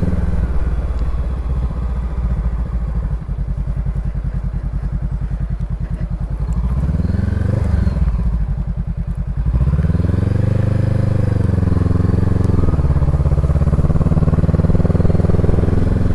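Honda CB500X's parallel-twin engine on the move, first chugging with an even pulse at low revs. About seven seconds in the revs rise and fall briefly. It then picks up again, pitch climbing and dropping a couple of times before holding steady.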